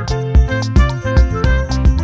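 Background music with a steady beat and sustained instrument notes.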